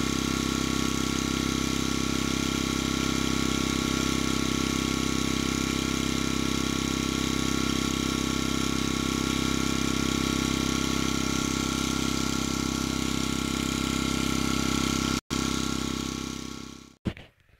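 Electric heat gun running steadily, its fan blowing hot air to shrink heat-shrink tubing over crimped wire splices. It is switched off near the end and winds down over about a second.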